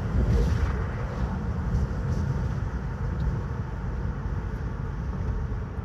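A car's steady low road and engine rumble while driving, slightly louder in the first half second.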